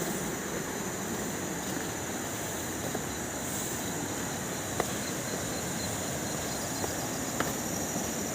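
Steady rush of a waterfall and river, with a steady high hiss on top and a few faint clicks.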